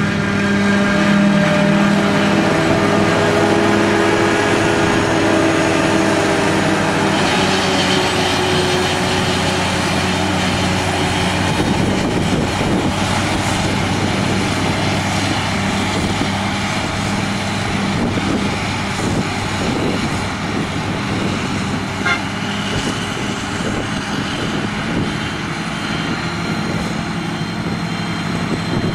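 Heavy farm machinery running steadily with a low engine hum. A broad rushing noise joins it about seven seconds in.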